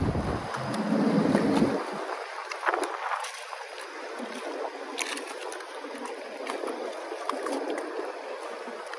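Small waves lapping and gurgling against boat hulls, with a few faint clicks and knocks. A low wind rumble on the microphone dies away about two seconds in.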